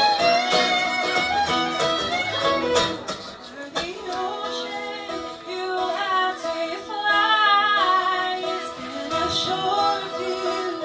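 Live folk band playing: fiddle and acoustic guitar, with singing coming in about four seconds in.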